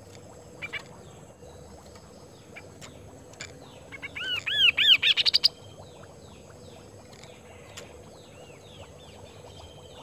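A caged kaso-kaso (chestnut-capped babbler) singing: a loud run of about eight quick arched notes that climb in pitch, a few seconds in, with a short call before it and softer falling chirps after.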